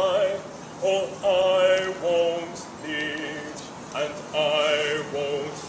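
Live singing of a theatre song: held notes with vibrato, in several phrases separated by short breaths.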